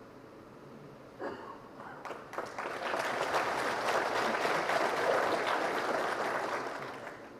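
An audience applauding. A few scattered claps about a second in swell into full clapping, which dies away near the end.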